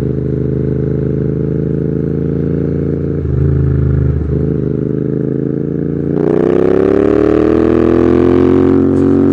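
Royal Enfield Continental GT 650's parallel-twin engine through Red Rooster aftermarket exhausts, running at a steady speed with a short break in the note about three to four seconds in. From about six seconds in the bike accelerates, its exhaust note climbing steadily in pitch and getting louder.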